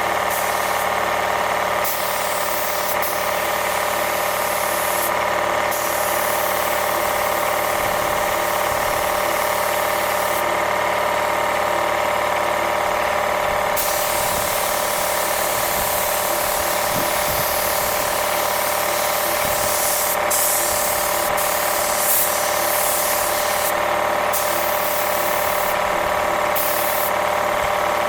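Air compressor running steadily, with the hiss of a spray gun laying on primer that stops and starts several times.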